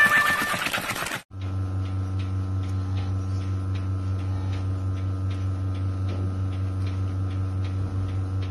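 Music cut off suddenly about a second in, then a steady electrical hum with a light, regular ticking about two or three times a second.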